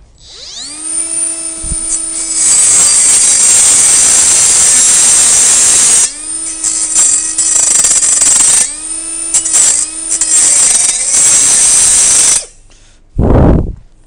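Milwaukee Fuel brushless cordless angle grinder spinning up with a rising whine, then grinding loudly and harshly at a rusted earth-rod jumper connection. It eases off and spins back up twice before stopping about twelve seconds in, followed by a short low thump near the end.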